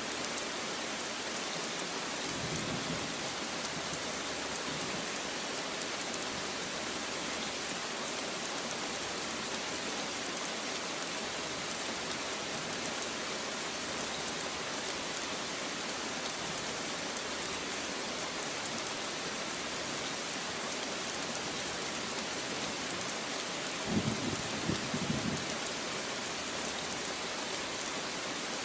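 Steady rain falling, an even hiss of many drops. Near the end there is a short low rumble of thunder, with a fainter one a few seconds in.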